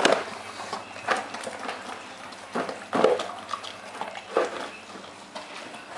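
A dog eating raw minced meat from a plastic bowl, its muzzle pushing the bowl so that it knocks and scrapes on the tiled floor at irregular intervals.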